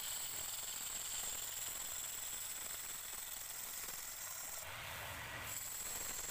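Wood lathe spinning a large bowl blank while a hand-held turning chisel cuts the outside: a steady hissing scrape over a steady high whine. About five seconds in the cut briefly sounds fuller and heavier.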